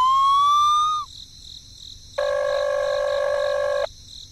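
A siren-like tone rising in pitch, cutting off about a second in, then a steady horn-like buzzing tone for about a second and a half.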